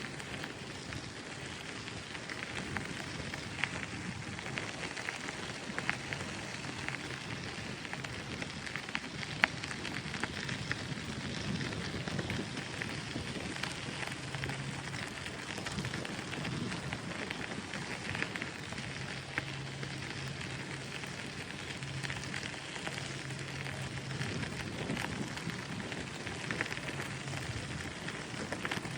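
Bicycle tyres rolling over the seawall path: a steady hiss full of small crackles and ticks.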